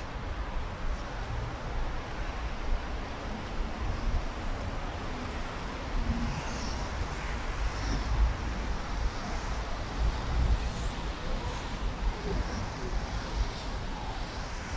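City street ambience: steady traffic noise from passing cars, with a low rumbling of wind on the microphone.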